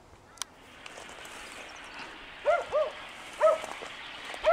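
An animal calling: four short, arched, bark-like calls in the last two seconds, over a steady hiss.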